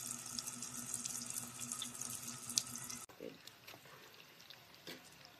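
Hot oil sizzling and crackling as spring rolls deep-fry in an electric deep fryer's basket, over a steady low hum. The sizzle cuts off abruptly about three seconds in, leaving a much quieter stretch with a few faint clicks.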